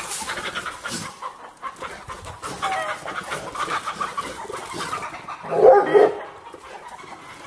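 Hens clucking repeatedly, with one loud dog bark about five and a half seconds in.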